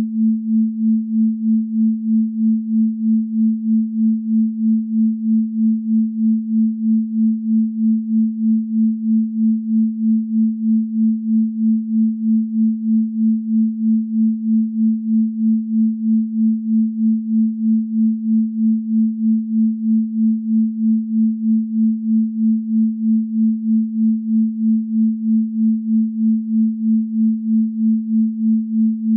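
A pure sine tone at 221.23 Hz, the 'Venus frequency' sound-healing tone, held at one pitch with an even pulsing in loudness a few times a second.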